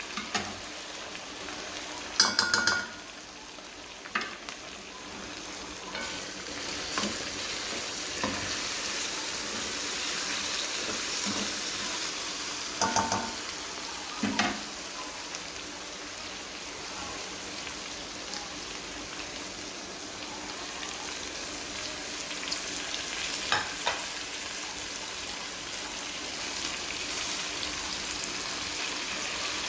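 Food sizzling as it fries in oil in a pan, a steady hiss, with a few sharp clatters of a stirring utensil against the pan now and then.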